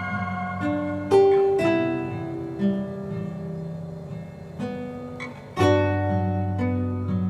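Background music: an acoustic guitar picking slow, ringing chords, with a new chord every second or so.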